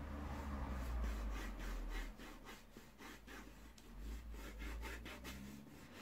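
Pencil scratching lightly on drawing paper in many short, faint strokes, with the hand rubbing over the sheet and a low rumble underneath.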